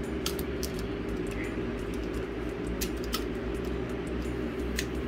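A few light, sharp clicks, coming in pairs, as the follower of an S&W M&P Shield 9mm magazine is pushed down against its spring with a pen tip to check the reassembled magazine. A steady low hum runs underneath.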